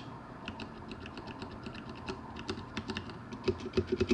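Typing on a Filco Majestouch 104 mechanical keyboard with Cherry MX Brown switches: quick, light key clicks, a few louder strokes toward the end.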